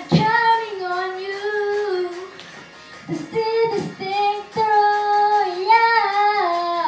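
A young boy singing into a handheld microphone, long held notes that bend and slide in pitch, in two phrases with a short break about halfway through.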